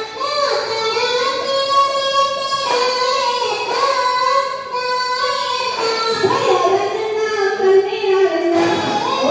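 Valli Kummi folk song, a high voice singing long held notes that slide up and down between phrases.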